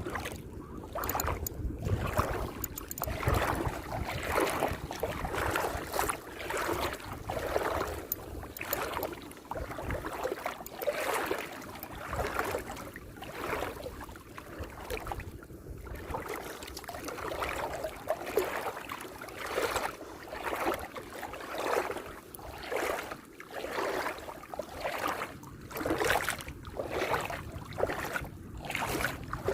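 Water sloshing and lapping in a steady rhythm, swelling about every second and a half.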